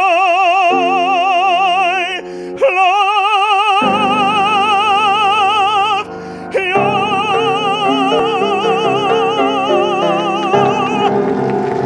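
Operatic solo singing: the closing held notes of a song, sung with a wide, even vibrato over sustained instrumental accompaniment. There are three long notes with short breaths between them, and the last is held for about four seconds before it stops just before the end.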